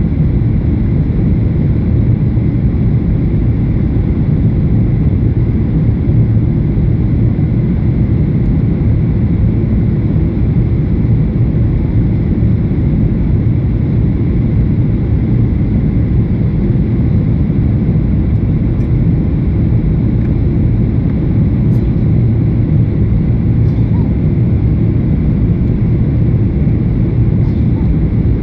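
Low, steady rumble inside the cabin of a Boeing 737-800 on its landing approach: its CFM56 jet engines and the air rushing past the fuselage, heard from a window seat, with a faint steady whine over it.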